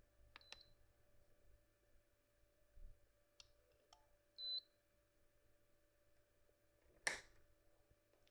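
Near silence with faint clicks, two short high-pitched electronic beeps about four seconds apart, and a sharper click about seven seconds in.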